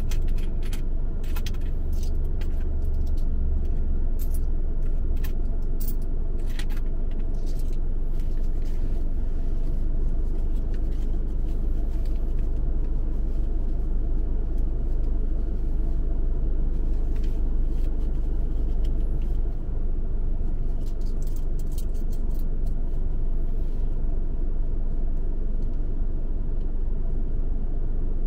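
A car being driven in city traffic: steady low engine and road rumble with scattered light clicks and ticks. The deepest part of the rumble drops away about twenty seconds in.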